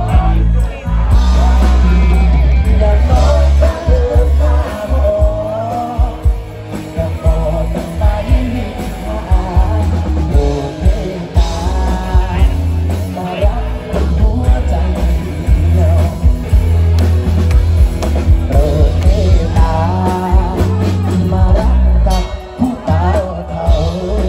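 Live band performing with a male vocalist singing into a microphone over electric bass, electric guitar and drums, with a heavy bass.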